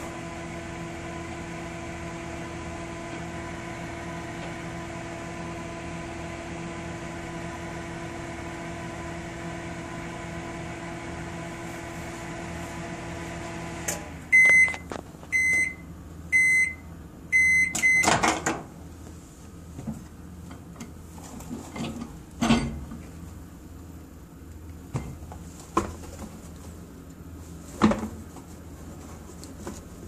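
Microwave oven running with a steady hum that stops about halfway through, followed by five short beeps at the end of the cycle. Then a loud clunk as the door is opened and several scattered knocks as the heated sneakers are taken out and handled.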